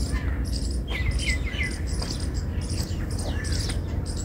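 Small birds chirping in quick, high, short notes, many overlapping, over a low steady rumble.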